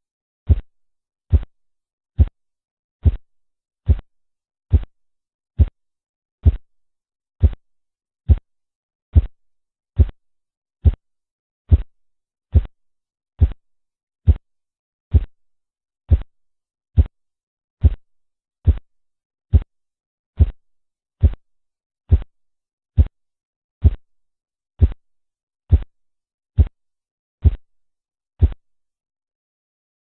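Korotkoff sounds, as heard through a stethoscope over the brachial artery while the cuff deflates: a regular series of dull single taps at about 70 a minute. They stop a little before the end.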